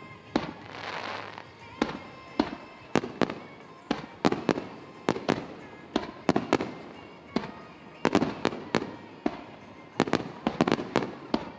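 Aerial firework shells bursting in quick, irregular succession, each sharp bang trailing off, with a rushing hiss about a second in and the bangs bunching up near the end.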